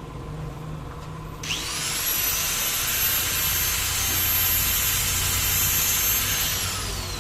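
Small electric grinder spinning up about a second and a half in, running with a high whine and a grinding hiss, then winding down near the end: piston rings being ground to size for the 4D56 engine rebuild.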